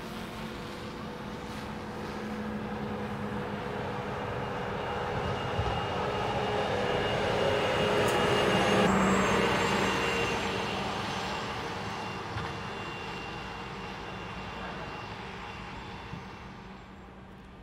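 Mercedes-Benz GenH2 hydrogen fuel-cell truck driving past: tyre and drive noise with a steady whine. It grows louder to a peak about halfway through, then fades as the truck moves away.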